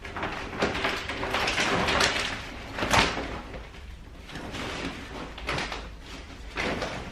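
Clear plastic pram storm cover crinkling and rustling in irregular bursts as it is pulled and fitted over the seat, with one sharper snap about three seconds in.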